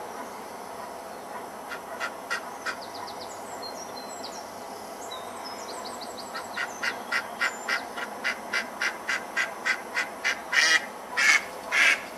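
Mallard quacking: a few quacks about two seconds in, then a rapid run of quacks, about three a second, growing louder and longer toward the end. Faint high bird chirps come in between.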